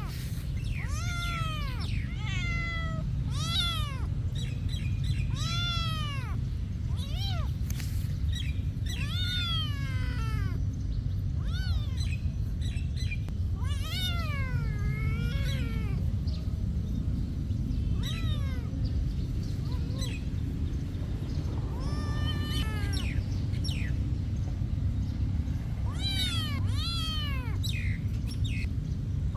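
Kitten meowing over and over in high-pitched calls, each rising then falling, with a few short pauses between runs of calls. A steady low rumble runs underneath.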